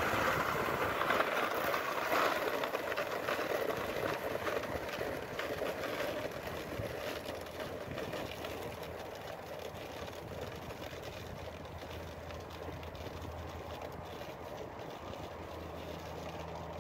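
A plastic ice-fishing sled dragged across snow-covered ice with a steady scraping hiss, fading as it is pulled away. A faint low hum comes in near the end.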